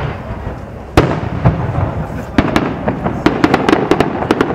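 Aerial firework shells bursting overhead: one loud bang about a second in, then from about halfway a rapid run of sharp crackling pops.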